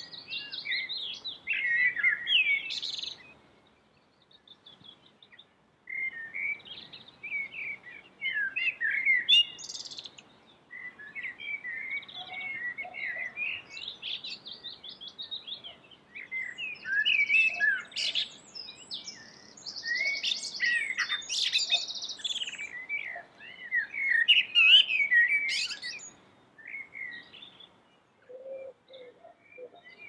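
Male common blackbird singing: phrase after phrase of warbling song with high twitters, broken by short pauses, the longest a couple of seconds long about three seconds in.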